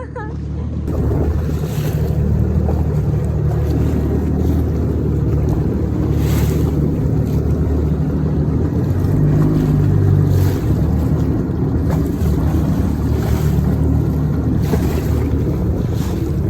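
Jet ski engine running slowly, a steady low drone, with gusts of wind noise on the microphone now and then.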